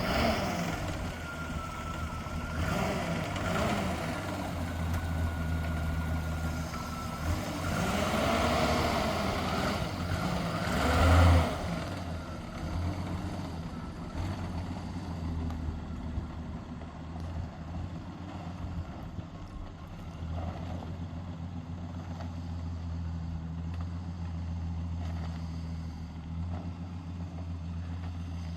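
Jeep Wagoneer engine running, with a rising and falling stretch that peaks in a loud surge about eleven seconds in, then a steady run.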